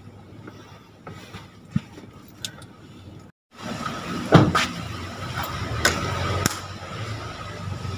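Quiet van cabin with a few small clicks. After a cut, outdoor street ambience with a single loud thump of a vehicle door shutting, followed by a couple of lighter knocks.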